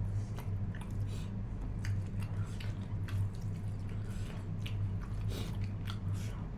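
Close-up wet chewing and mouth sounds of someone eating: irregular short smacks and clicks over a steady low hum.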